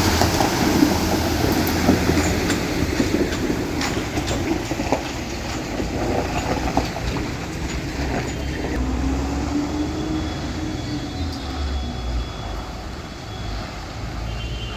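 Road traffic: vehicle engines running and tyres passing, a steady rumble with scattered clicks and one engine's pitch slowly rising and falling about two-thirds of the way through.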